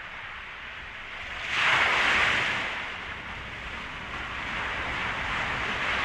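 A rushing noise like wind or surf, swelling about a second and a half in and then easing back. It is a studio sound effect opening a track on a late-1960s psychedelic record.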